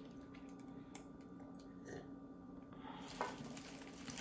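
Quiet room tone with a faint steady hum, a few faint small clicks, and a slightly louder soft sound about three seconds in.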